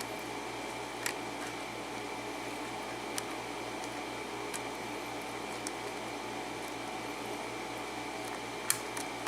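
A handful of faint, sharp clicks from a lock pick working the pin stack of a Schlage-keyway pin-tumbler lock held in a vise, over a steady background hum.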